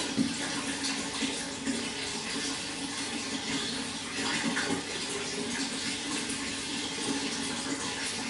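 Running water flowing steadily, a continuous splashing and gurgling.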